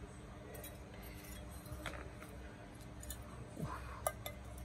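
Faint, scattered clicks and light taps of a metal CNC V2 airsoft gearbox shell being handled and turned over in the hands, with a few sharper ticks in the second half.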